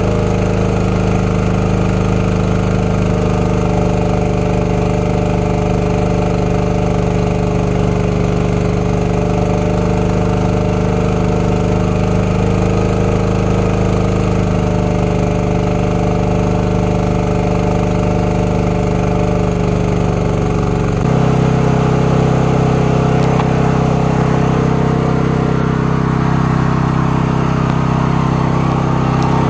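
Engine of a truck-mounted high-pressure washing rig running steadily while the jet wand sprays water at full pressure. About two-thirds of the way through, its note changes abruptly, then runs steady again.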